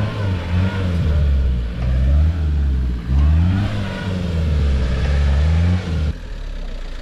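4WD pickup truck's engine revving hard again and again, rising and falling in pitch, while the truck is bogged in deep, soft mud. It drops back to idle about six seconds in.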